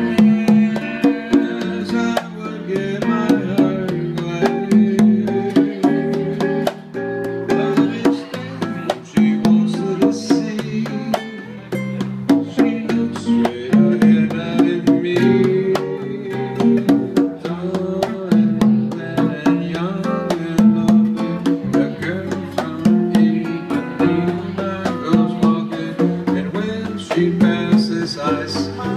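Live bossa nova band playing: congas struck by hand in a steady, busy rhythm over acoustic guitar and electric bass.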